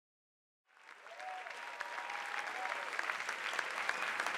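Theater audience applauding, a dense patter of many hands clapping that fades in under a second in and holds steady.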